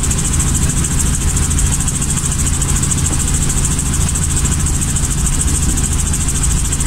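Robinson helicopter's piston engine and rotors running steadily, with a steady high whine.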